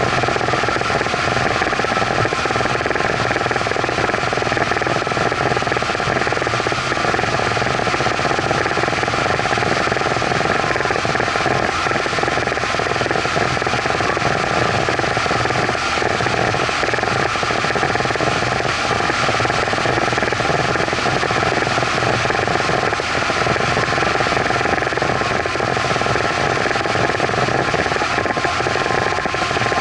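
Evinrude outboard motor running steadily at speed while towing a kneeboarder, its drone mixed with the rush of water from the wake and spray. The sound holds even, with no change in engine pitch.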